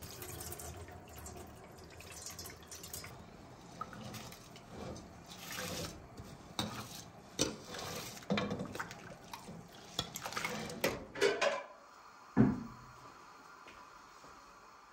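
Water running at a kitchen sink with rice in an enamel bowl, then a metal ladle clinking and scraping against the bowl as rice is spooned into a pot of boiling water. Near the end comes one dull knock, the loudest sound.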